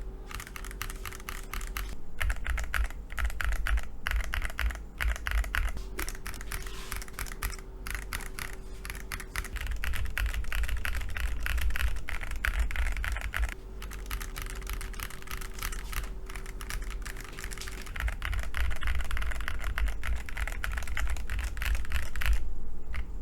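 Akko ACR68 Pro gasket-mount mechanical keyboard, fitted with a plastic plate and tape-modded, being typed on quickly. The keystrokes clack in runs of a few seconds with brief pauses between them.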